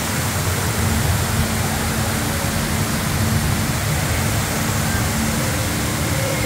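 Steady rushing of a tall indoor waterfall pouring down a rock and plant wall.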